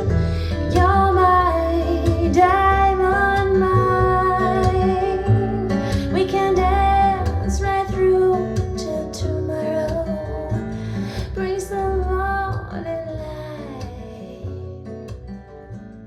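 A song played back through Audio Note AN-J-LX loudspeakers driven by an Audio Note I Zero push-pull tube amplifier, recorded in the listening room: held female sung notes over acoustic guitar and bass, fading out over the last few seconds.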